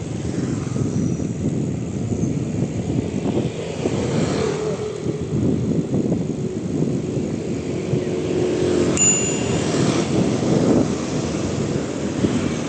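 Steady low rumble of wind buffeting the microphone during a bicycle ride, with a brief thin high tone about nine seconds in.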